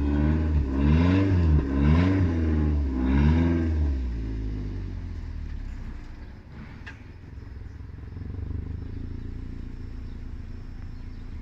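Toyota Avanza's engine revved up and down about four times, roughly once a second, then settling to a quieter steady run.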